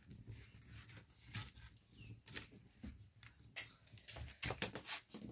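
Wood fire crackling under a pan of milk: scattered sharp crackles and clicks, with a louder cluster about four and a half seconds in.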